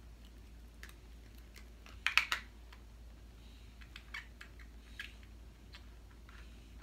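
Light clicks and crinkles of small makeup packaging being handled and opened by hand, with a cluster of sharper clicks about two seconds in.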